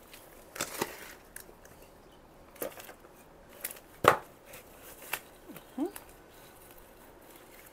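Gloved hands working potting soil into a plant pot: scattered short rustles and knocks of soil and pot being handled. The loudest is a sharp knock about four seconds in, and a brief rising squeak follows near six seconds.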